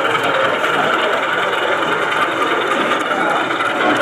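Steady murmur of many people talking in a busy exhibition hall.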